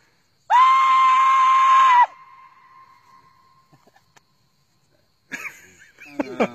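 A Choctaw war cry: one loud, shrill, steady-pitched yell held for about a second and a half, starting and stopping abruptly, with a faint ringing tail. Voices start up near the end.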